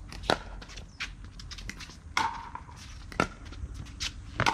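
Pickleball paddles striking a plastic pickleball during a rally: four loud, sharp pops about a second apart, with fainter clicks in between.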